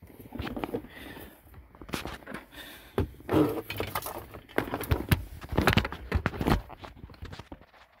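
Hands working a wire loose from its plastic clip under a steering column: irregular clicks, taps and rustling of plastic and wiring, busiest in the middle.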